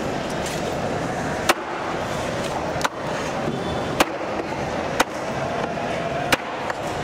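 Large machete-style knife chopping through shortfin scad onto a cutting slab: five sharp chops about a second apart, over a steady background din.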